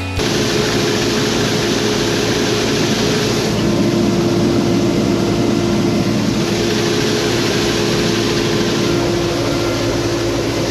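John Deere combine harvester running steadily: a continuous engine and machinery drone with a constant steady hum through it.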